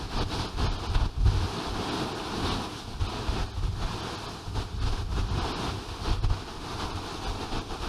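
Wind gusting against the microphone in irregular low buffets, over a steady rushing noise like wind and sea.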